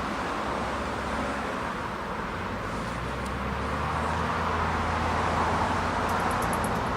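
Heavy machinery engine running steadily during log unloading, a low hum under a broad hiss, with a few faint clicks near the end.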